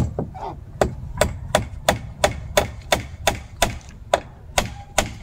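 Hand tool striking the wood of a bench frame under construction: a steady run of sharp blows, about three a second, like hammering at a joint.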